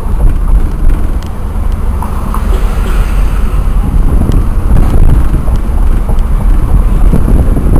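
Road noise inside the cabin of a moving 2008 Jeep Wrangler: a steady, loud low rumble of engine, tyres and wind.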